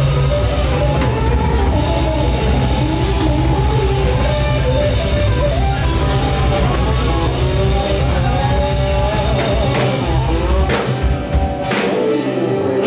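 Live rock band playing, with drum kit, bass and guitars and a moving melody line on top. Near the end the drums and bass drop away.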